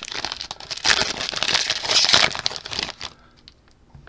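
Foil wrapper of a Mosaic football card pack crinkling and tearing as it is opened, stopping abruptly about three seconds in, followed by a few faint ticks.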